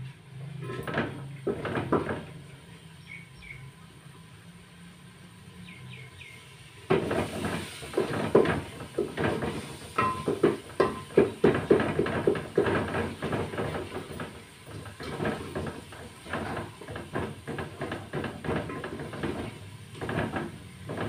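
Ladle stirring and scraping spice masala frying in a metal pot. After a couple of knocks early on, quick, busy scraping starts about seven seconds in and keeps on, as the masala is fried down (bhuna) on high heat.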